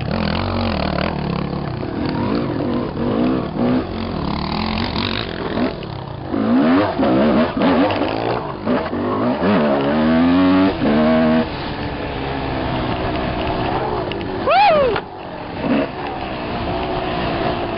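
Dirt bike engine being ridden around a motocross track, its pitch climbing and dropping over and over as the throttle is opened and closed through the turns and straights, with a steady rushing noise underneath.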